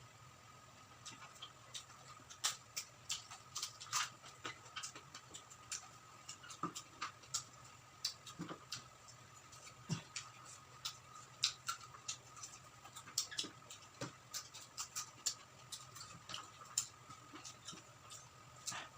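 Close-up chewing of crisp, dry-fried quail: irregular crunching clicks, several a second, as the meat and small bones are bitten through.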